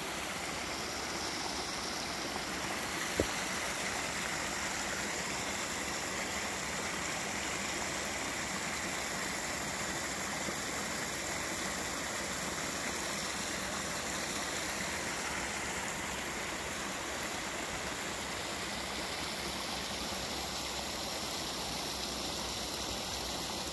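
Small creek flowing: a steady rush of running water. One brief click about three seconds in.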